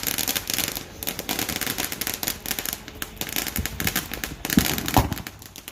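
Fireworks crackling: a dense run of rapid small pops lasting about five seconds, with a few deeper booms in the last couple of seconds.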